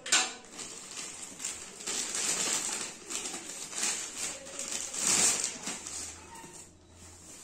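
Plastic courier mailer bag rustling and crinkling in irregular bursts as it is handled and a cardboard box is slid out of it, loudest about five seconds in.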